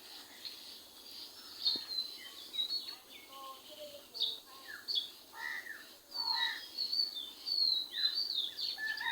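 Birds chirping and calling: many short chirps and quick downward-sliding whistles from more than one bird, getting busier in the second half.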